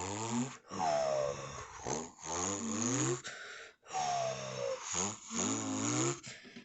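A person imitating with the mouth a truck with a straight-piped exhaust ("diretão"): four or five rough, throaty engine-like blasts with short breaks between them, some sliding down in pitch.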